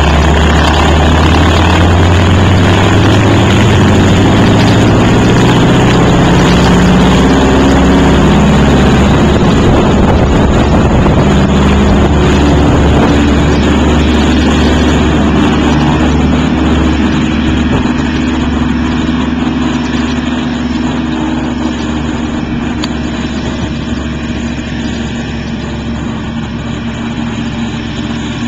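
A de Havilland Canada Beaver topdressing plane's radial engine and propeller being run up to takeoff power. The pitch rises over the first several seconds, then holds steady and slowly fades as the plane moves off down the strip and away.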